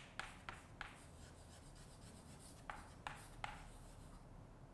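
Chalk writing on a blackboard: faint short taps and scrapes as a word is written by hand, in a cluster near the start and another about three seconds in.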